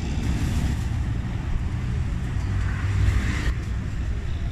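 Street traffic noise: a steady low rumble of road vehicles, with a brighter hiss that swells and then cuts off suddenly about three and a half seconds in.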